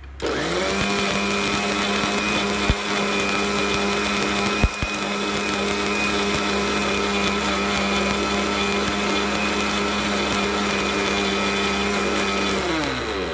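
Mixie (Indian mixer grinder) grinding broken dry ginger pieces to powder. The motor spins up, runs steadily, and winds down near the end, with two sharp knocks early on in the run.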